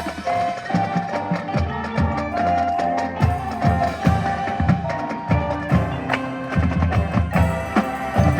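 High school marching band playing its field show: sustained pitched notes over frequent drum and percussion hits.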